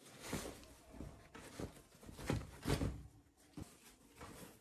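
Faint rustling of raw cotton canvas as a sewn tote bag is turned right side out by hand, in several brief, irregular swishes.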